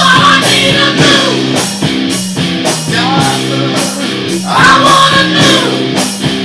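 Hard rock song: a distorted electric guitar, an Epiphone Les Paul, plays a chugging riff over a steady drum beat, with a singing voice coming in at the start and again about two-thirds of the way through.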